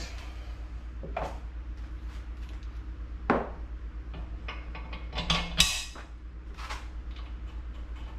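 Metal car suspension parts clinking and knocking a few times as they are handled and fitted together, the sharpest knocks about three seconds in and about five and a half seconds in. A steady low hum runs underneath.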